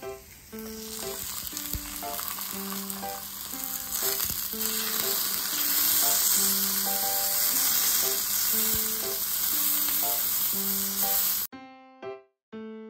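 Fatty beef sizzling as it fries in oil in a small cast-iron skillet. The sizzle starts about half a second in, grows louder after a few seconds and cuts off abruptly near the end. Light keyboard background music plays underneath throughout.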